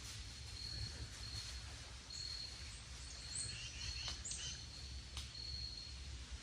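Woodland ambience: a short high note repeats about once a second, like an insect or a bird calling, with a few quick high bird chirps in the middle and a low wind rumble. There are two faint clicks about four and five seconds in.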